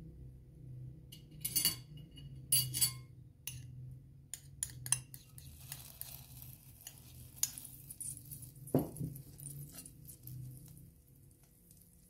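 A metal spoon clinking and scraping against a ceramic bowl and a stainless steel frying pan as butter is scraped into the pan, with sharp clinks bunched in the first few seconds and a few more later. From about halfway a faint hiss comes in as the butter melts in the hot pan.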